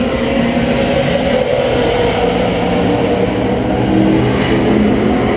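Racing car engines running, a continuous drone whose pitch rises and falls slowly, over a low rumble.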